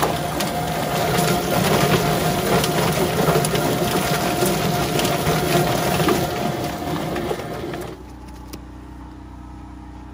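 Drum-style chicken plucker running, scalded birds tumbling and knocking against the rubber fingers as they are stripped of feathers, with water spraying from a hose nozzle into the drum. The motor hum and knocking cut off about eight seconds in.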